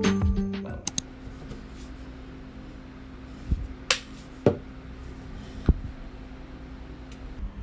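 A plastic pump on a body-lotion bottle being pressed, giving several short sharp clicks over a faint steady hum. Background music fades out in the first second.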